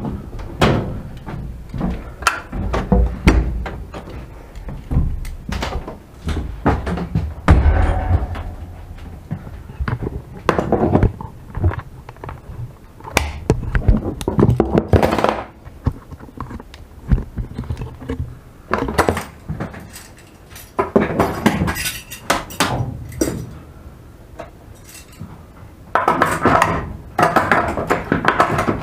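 Irregular knocks, clunks and rattles inside an ET22 electric locomotive's cab as it runs along the track, with dense bursts of clatter several times and near the end.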